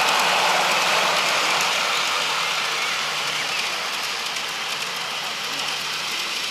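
Garden-railway model freight train, a diesel locomotive hauling wagons, rolling along the track: a steady rushing rattle of wheels on rails that slowly fades as the train moves away.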